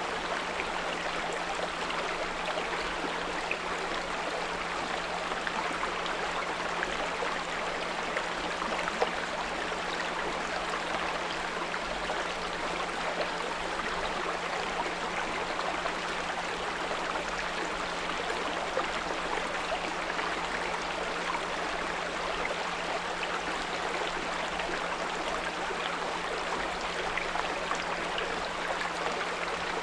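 Small brook babbling steadily, with a continuous low 174 Hz pure tone running beneath the water.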